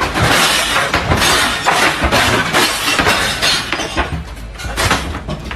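Loud, continuous crashing and clattering with glass breaking and objects falling, as in a room being shaken by an earthquake. It thins out near the end.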